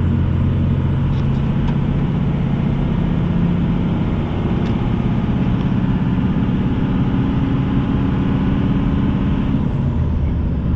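Swapped-in 5.9 Cummins 12-valve turbo diesel pulling under acceleration while merging onto a highway. Its pitch climbs through the middle and drops back near the end.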